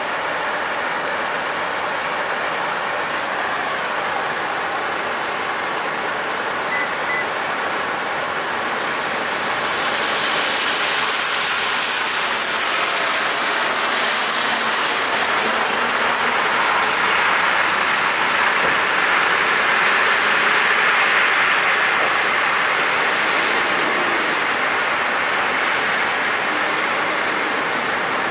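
Steady rain falling on wet pavement, mixed with a vehicle's engine and tyre hiss. About ten seconds in the hiss turns brighter and a little louder and stays that way.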